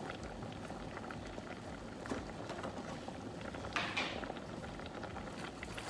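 Stainless steel pot of mung bean soup simmering, with a steady patter of small bubbles popping. A short, louder hiss comes about four seconds in.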